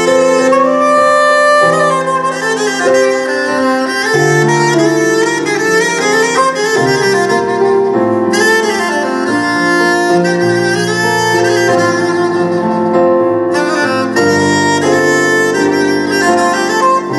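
Instrumental music: a held, melodic wind-instrument line over accompaniment, playing in phrases with brief breaks about halfway through and again near the end.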